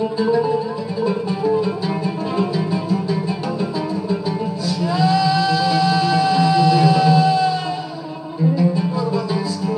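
Instrumental music: fast plucked string instruments over a steady low accompaniment. About halfway through, a single long melody note slides up into pitch and is held for about three seconds.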